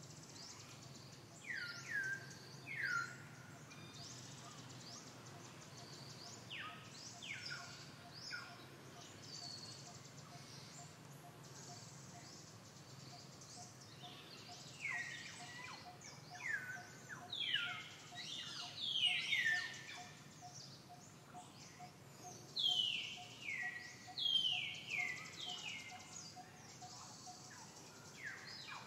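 Birds calling in the trees: short, sharp calls that each sweep steeply downward in pitch, coming in quick runs, louder and more frequent in the second half. A faint, even ticking runs underneath through the middle stretch.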